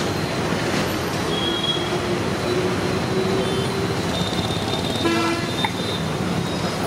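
Steady road traffic noise with vehicle horns tooting now and then, including a short horn blast about five seconds in.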